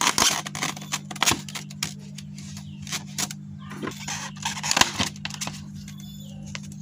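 Thin clear plastic bottle covers crackling and clicking as they are pushed down over plastic gallon pots: a run of irregular sharp crinkles and taps, with a steady low hum underneath.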